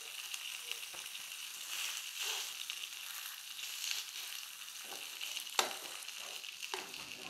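Fatty beef slices sizzling in a nonstick frying pan in their own rendered fat, with no added oil. A plastic spatula scrapes and knocks against the pan a few times as the slices are turned over, the sharpest knock a little after the middle.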